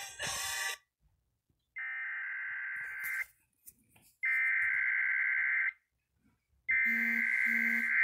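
Emergency Alert System SAME header: three identical bursts of warbling digital data tones, each about a second and a half long with about a second of silence between, the coded start of an emergency alert (here a severe thunderstorm warning). A few seconds of music cut off just before the first burst.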